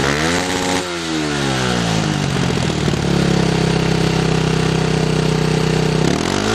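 Fantic Casa 125 motorcycle engine on its stock exhaust, revved up and down in quick throttle blips, then held at a steady high rev for about three seconds before dropping back near the end.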